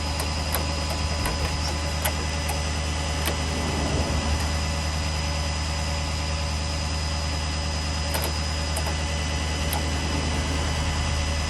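Vehicle engine running steadily at idle: a low, even hum with a few faint clicks.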